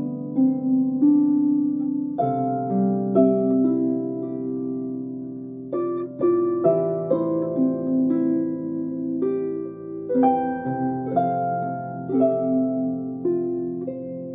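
Background music: gentle plucked harp-like notes over sustained chords.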